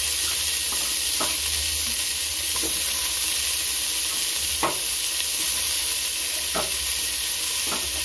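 Chopped tomatoes frying in hot sesame oil and ghee with browned onions in a large aluminium pot, a steady sizzling hiss with a few light knocks.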